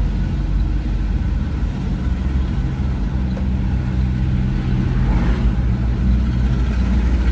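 Old diesel truck engine and exhaust running steadily, a continuous deep engine note.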